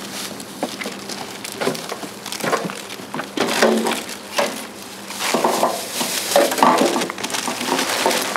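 Broken boards and building rubble being trodden on and picked through, with irregular wooden knocks, cracks and scraping of debris.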